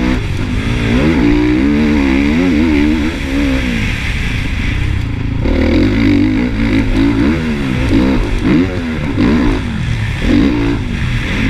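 Honda motocross bike's engine revving hard and backing off over and over as it is ridden around a dirt track, its pitch climbing and falling with the throttle and gear changes, heard close up from the rider's helmet camera.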